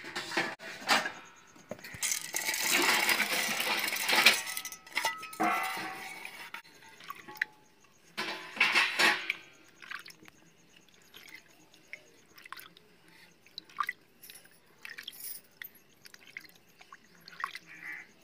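Split pigeon peas (arhar dal) being washed by hand in a steel bowl of water: a pour into the bowl lasting a few seconds, another shorter one, then fingers swishing and rubbing the dal with small splashes, drips and light clinks against the steel.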